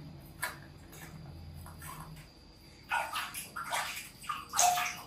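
Water sloshing and splashing in a plastic basin as a baby monkey is washed by hand: quiet at first, then a run of short splashes from about three seconds in.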